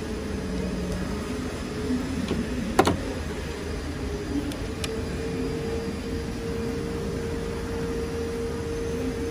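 Steady mechanical hum and hiss, with one sharp click about three seconds in. A steady tone joins the hum about five seconds in.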